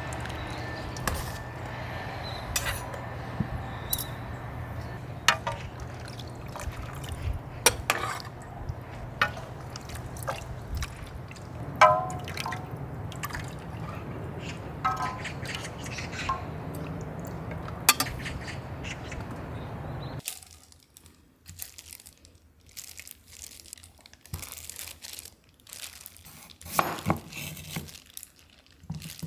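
Hot chicken broth ladled out of a cast-iron cauldron into bowls: pouring and dripping liquid with clinks and knocks of the ladle and bowls over a steady low hum. About two-thirds of the way through it cuts off sharply and a knife cuts through seasoned pieces on a wooden cutting board, a few separate knocks.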